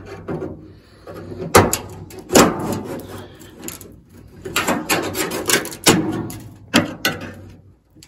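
Flathead screwdriver prying an old, brittle window channel and its metal rivet clips out of a Ford F100 door: a string of sharp clicks and snaps with scraping between them as the channel lifts and breaks up.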